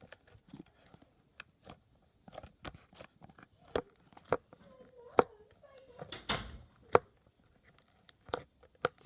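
Sticky homemade slime being squeezed and pulled by hand, giving irregular wet clicks and pops.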